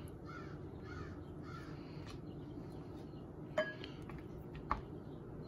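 A basting brush clinks twice against a ceramic bowl of melted butter, sharp short taps about a second apart, over a low steady hum. Faint repeated bird calls sound in the first couple of seconds.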